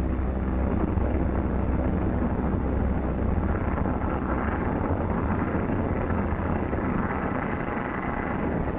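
Douglas C-47 transport's piston engines and propellers making a steady, rough drone as the plane comes in low to land. The low rumble eases a little partway through.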